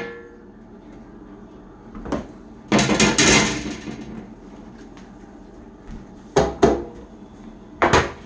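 Metal bakeware clattering: a wire cooling rack and a metal baking sheet being handled and set down, in several separate bouts of clanking, the longest about three seconds in.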